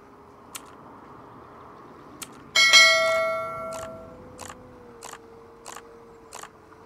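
A bell struck once, ringing and fading over about a second and a half, followed by a short run of light clicks about two-thirds of a second apart.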